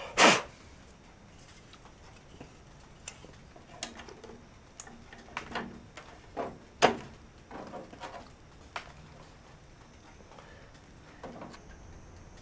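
Knocks and clicks of hard plastic clock parts being handled and fitted together, with the loudest knock just after the start and another about seven seconds in.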